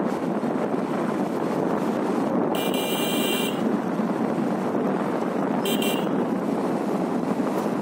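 Steady wind and road noise from a moving motorcycle. A horn sounds once for about a second, two and a half seconds in, and again briefly a little before six seconds.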